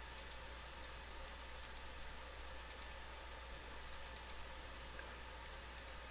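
Faint, scattered computer-mouse clicks over a low steady hiss and hum, with a quick cluster of clicks about four seconds in.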